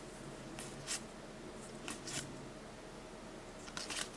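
A handful of faint, short taps and rustles of Pokémon trading cards and booster packs being handled.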